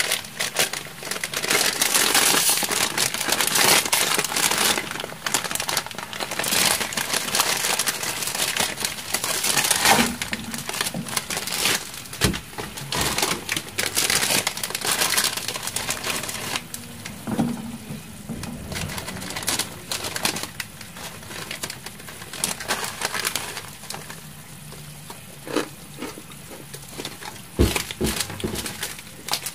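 Packaging being handled, crinkling and rustling almost without a break, with scattered clicks and a few separate knocks in the second half.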